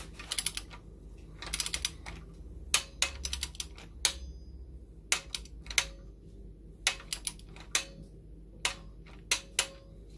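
Click-type torque wrench working on cylinder head bolts during a 30 Nm tightening pass. It makes three quick runs of ratchet clicks in the first few seconds, then single sharp clicks spaced a fraction of a second to about a second apart.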